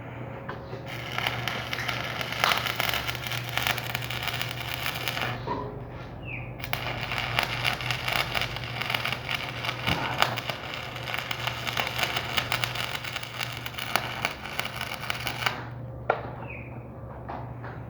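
Arc welding: the arc crackles in two runs, with a short break about five and a half seconds in, the second run stopping a couple of seconds before the end. A steady low hum runs underneath.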